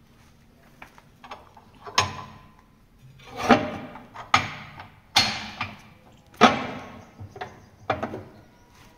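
Knocks and clanks from a sheet-steel wood stove and its burner ring being handled: about six separate knocks, each ringing away over about half a second.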